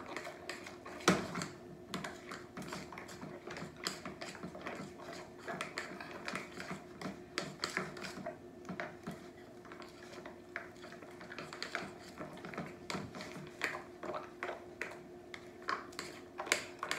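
A spoon stirring thick cornbread batter with pork cracklings in a glass mixing bowl, making irregular clicks and taps against the glass, one louder knock about a second in. A steady low hum runs underneath.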